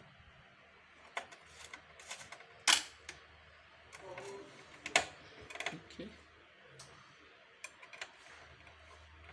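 Scattered clicks and knocks of a screwdriver and a metal-framed LCD panel being handled while fitting the panel into a patient monitor's open plastic case, with two sharper knocks about two and a half and five seconds in.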